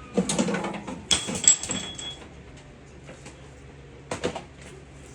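Clattering knocks and rattles of hard objects being handled and set down, a busy run over the first two seconds and a short cluster of knocks about four seconds in.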